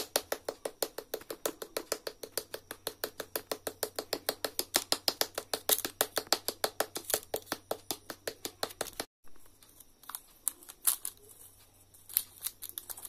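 A flat hand paddle patting a clay slab flat in a quick, steady rhythm of about six or seven sharp taps a second. After about nine seconds the tapping stops and a few scattered clicks and light scrapes follow as a needle tool cuts the clay around a plate.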